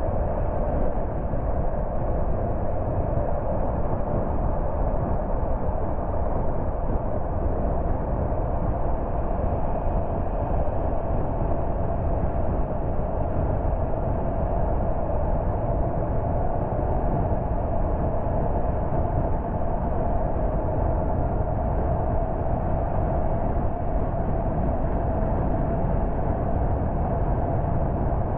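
Car driving at a steady speed: constant engine and tyre-on-road noise with a steady drone holding one pitch.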